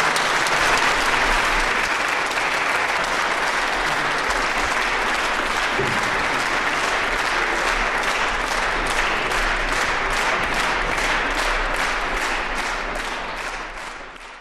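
Audience applauding, settling about halfway through into rhythmic clapping in unison, about two to three claps a second, then fading out near the end.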